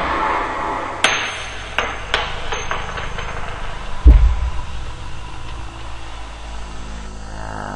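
A series of sharp impact sounds: a hard crack at the start, several quick clicking knocks with a faint metallic ring over the next two seconds, then a heavy low thud about four seconds in, over a steady low drone.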